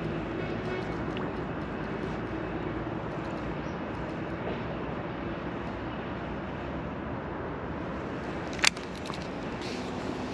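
Steady outdoor background noise with a faint distant engine hum that fades out about three seconds in. A single sharp click near the end is the loudest sound.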